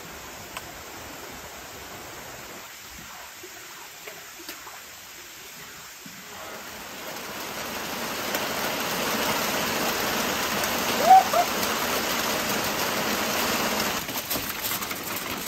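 Steady rain, a hiss that grows louder from about seven seconds in, with a short chirp about eleven seconds in. The sound drops off suddenly about fourteen seconds in.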